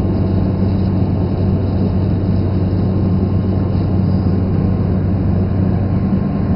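Turboprop airliner's engine and propeller running steadily in cruise, heard inside the passenger cabin as a constant deep drone with a low, even hum.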